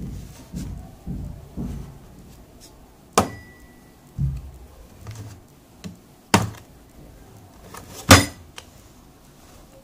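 Plastic latches of a DEWALT drill-bit kit case being snapped open, giving three sharp clicks with duller knocks of the hard plastic case being handled in between; the loudest click comes near the end as the lid comes free.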